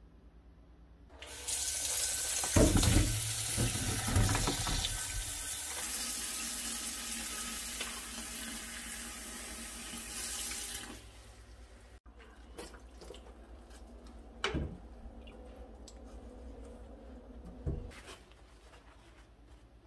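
Kitchen tap running into a stainless steel bowl of strawberries in a steel sink, a steady rush of water that starts about a second in and stops after about ten seconds, with heavier splashing early on as the bowl fills. Two light knocks follow in the quieter stretch afterwards.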